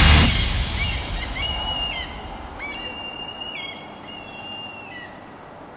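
Loud rock music ends, then a bird gives three clear whistled calls about a second apart. Each is a steady note under a second long that drops in pitch at its end.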